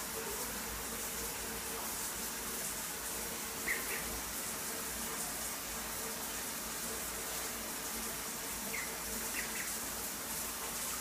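Ducklings giving a few short, soft peeps: one about four seconds in and two more close together near the end, over a steady hiss.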